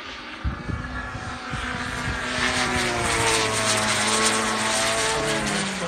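Radio-controlled model jet flying past with its gas piston engine and JetCat P-80 turbine both running: an engine note with a hissing whine that swells to a peak about four seconds in, then fades with the pitch dropping as it goes by.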